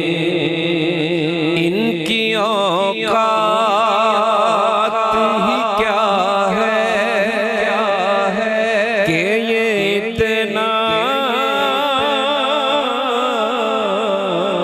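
Qawwali music: a held harmonium-like drone under a long wordless sung melisma. From about two seconds in, the voice wavers and slides in pitch.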